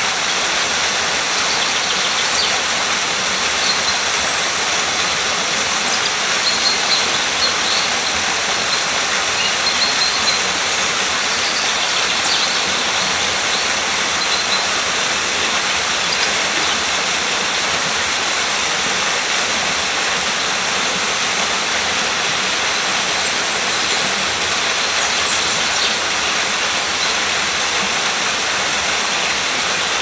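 Steady rushing water with no rise and fall, with a few faint bird chirps here and there.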